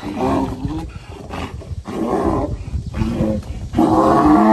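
Donkey braying: a run of harsh, rasping heaves back and forth, the loudest starting near the end.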